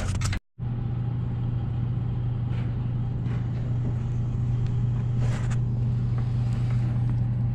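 Steady low mechanical hum, like a machine or engine running, with a few faint clicks in the middle; it starts after a brief gap.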